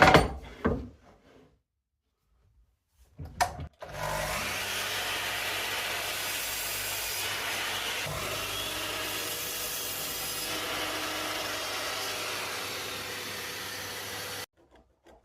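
An electric power tool cutting or sanding wood, running steadily for about ten seconds with a constant hum and stopping abruptly near the end. A few knocks of wood or metal being handled come before it.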